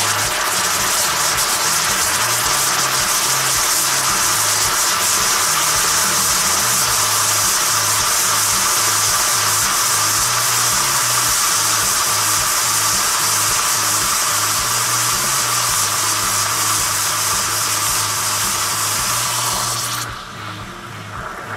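Glowing-hot metal ball hissing steadily as it sizzles in toothpaste in a glass, over background music with a low bass line. The hiss drops away abruptly about 20 seconds in.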